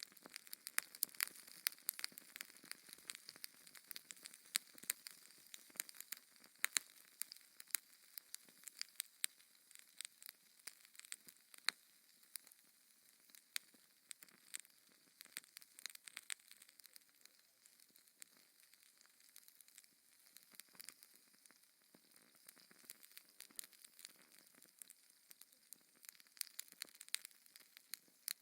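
Wood fire crackling in a fireplace: irregular sharp snaps and pops over a soft hiss. The pops come thicker in the first half and thin out later.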